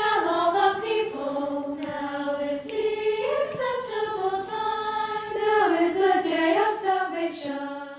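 A choir singing a sacred song in sustained, held chords, with a few voices moving between notes; the singing fades down near the end.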